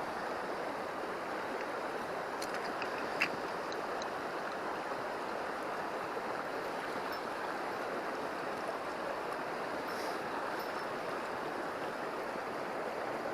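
River water rushing steadily over rocks, with a couple of small clicks about three seconds in.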